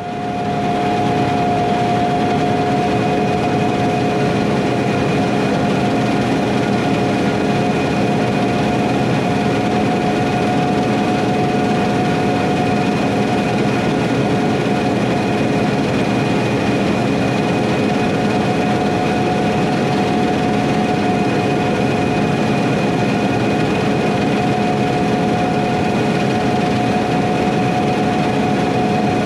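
Heavy diesel harvest machinery running steadily, with several constant whining tones over the engine noise.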